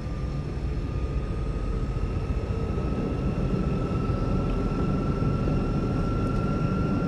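Aircraft engines droning, heard from inside the cabin: a steady low rumble with a thin whine that rises slowly in pitch as the engines build up.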